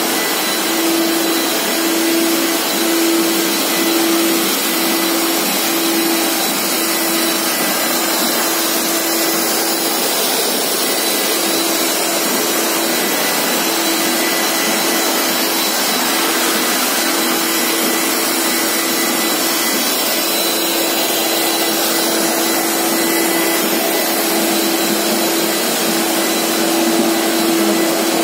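Corded walk-behind auto scrubber dryer running steadily: the suction motor's even rushing noise with a steady motor hum, as the brush deck scrubs and the squeegee vacuums a polished stone floor.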